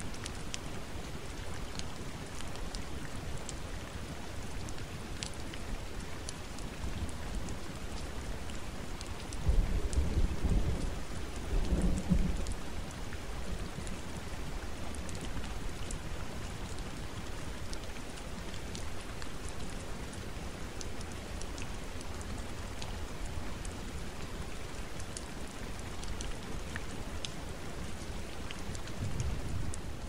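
Forest rain falling steadily, with scattered drop ticks. A low rumble of thunder swells about ten seconds in, and a shorter one comes near the end.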